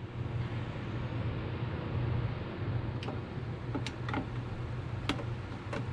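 A few sharp clicks, about four over the last three seconds, from a screwdriver and screw being worked into the plastic housing of an Echo PB-250LN leaf blower, over a steady low hum.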